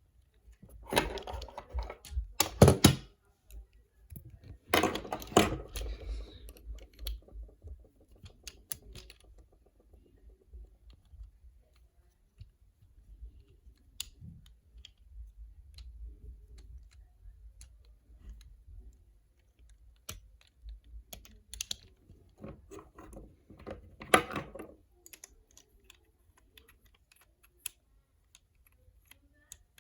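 Plastic Transformers action figure being handled and transformed by hand: scattered clicks and snaps from its joints and parts, with a few louder bursts of plastic handling noise about a second in, around five seconds in, and again near the end.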